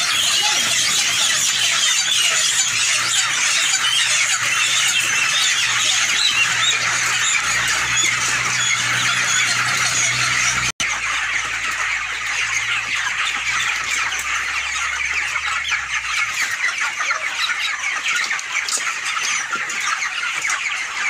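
A large flock of white broiler chickens calling all at once: a dense, continuous chorus of many high-pitched cheeps and squeals, broken for an instant about halfway through.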